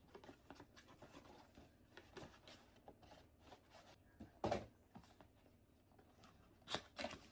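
Packaging being opened and handled: a string of soft scrapes, rubs and small clicks, with a louder knock about four and a half seconds in and two more near the end.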